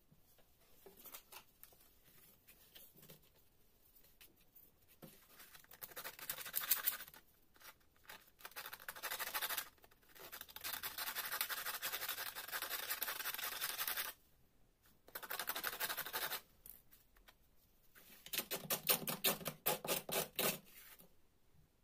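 Sandpaper scratching as a paper spinning top, a coiled paper disc on a wooden toothpick, is rubbed back and forth across it in quick strokes. The scratching comes in four bouts, the longest about four seconds, after a few seconds of light handling.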